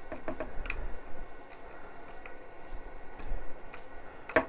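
Light clicks and ticks from a hand-held 3D-printed PLA bracket and its metal insert being handled and fitted, several in the first second and one sharper click near the end.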